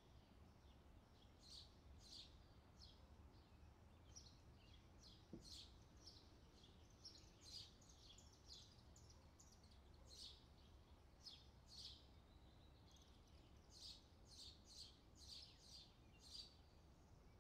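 Faint birdsong: many short, high chirps repeating at about one or two a second, over a low steady hum.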